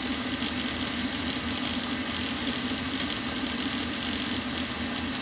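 Electric mixer running steadily, whipping eggs and sugar into a fluffy batter, with a constant hum and hiss.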